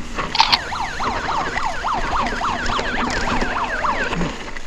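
Mountain bike hydraulic disc brakes squealing under braking on a slippery descent. The squeal wavers, its pitch dipping and rising about three times a second, with one sharp click about half a second in.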